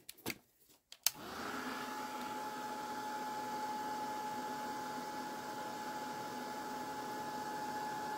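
Ranger Heat It craft heat tool switched on with a click about a second in, its fan spinning up and then running steadily with a constant whirring whine as it blows hot air over the card.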